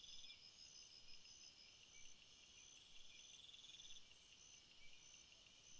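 Faint chorus of crickets: steady high-pitched trills from several insects at different pitches, with short chirps repeating about once a second.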